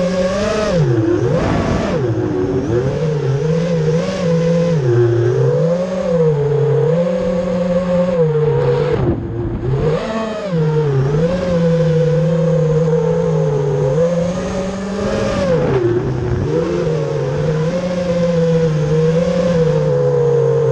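FPV quadcopter's electric motors and propellers whining from the onboard camera, the pitch rising and falling constantly with the throttle, with a short dip about nine seconds in.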